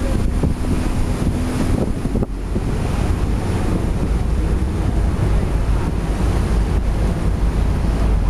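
Wind buffeting the microphone aboard a moving boat on open water: a steady, loud rumble of noise with no breaks.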